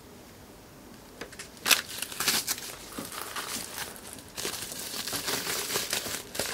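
Plastic packaging, bubble-wrap pouches and plastic bags, crinkling and rustling as it is handled. It starts about a second in as a run of irregular sharp crackles.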